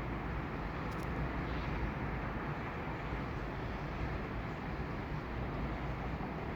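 City street ambience at night: a steady, even hum of traffic with no single vehicle standing out.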